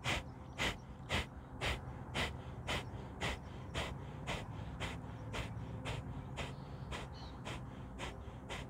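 Kapalbhati (fire breath): rapid, forceful exhalations through both nostrils, short sharp puffs at about two a second in a steady rhythm, growing somewhat softer after the first few seconds.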